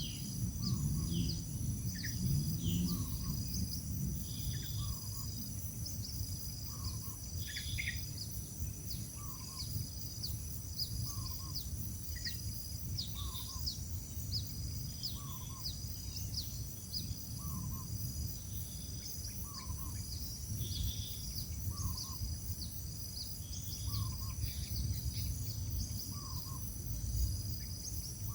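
Bird chirps: a short call repeating about every second and a half, with scattered higher chirps in between. Under them runs a steady low hum, and above them a constant high whine.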